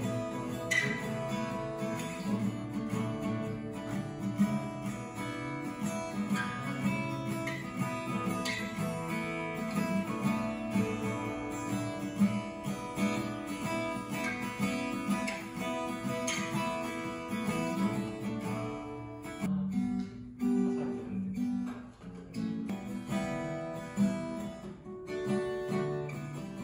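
Acoustic guitar strummed, playing chords of an instrumental tune; the playing thins out for a few seconds about twenty seconds in, then fills out again.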